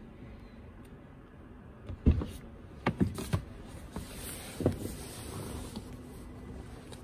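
Hyundai Santa Fe rear door being handled from inside: a sharp knock, then a quick cluster of clicks and knocks, another knock, and a soft rustling hiss as the door trim, handle and door are worked.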